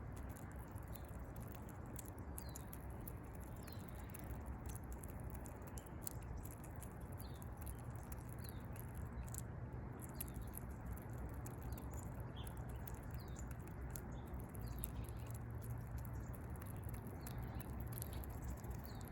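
Squirrel eating, with small sharp clicks of chewing and cracking. Under it runs a steady low rumble, and short faint high bird chirps come about once a second.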